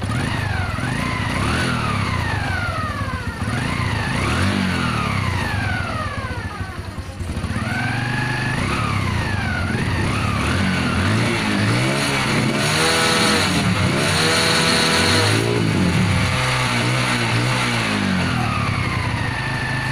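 Honda Revo Absolute's 110 cc single-cylinder four-stroke engine running and being revved up and down again and again, with a steadier run near the end. It runs smoothly with no rattle, now that the broken camshaft that caused the rattle has been dealt with.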